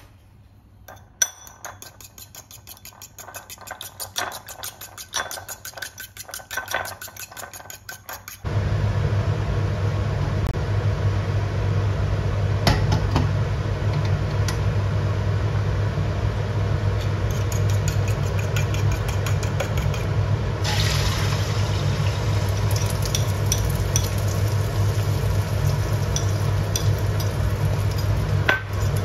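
Eggs being beaten in a bowl: a quick, even run of clicks of a utensil against the bowl. About eight seconds in, a steady low roar of the gas cooktop starts, and from about twenty seconds in a thin sizzle of oil heating in the wok rides over it.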